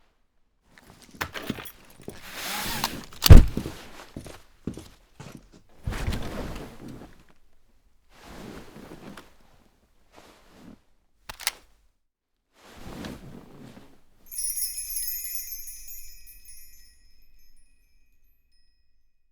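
Foley sound effects: a string of rustles, swishes and knocks, the loudest a sharp thud about three seconds in, then a high, chime-like ringing that fades away over about three seconds.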